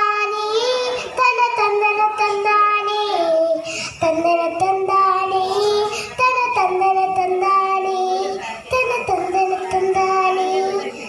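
A young girl singing a Malayalam folk song (naadan paattu) alone, holding long notes that step up and down in pitch, with short breaths between phrases.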